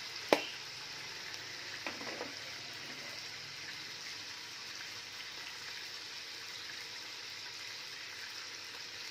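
Chicken frying in oil in an open pressure cooker, a steady sizzle, with one sharp click about a third of a second in and a fainter knock around two seconds.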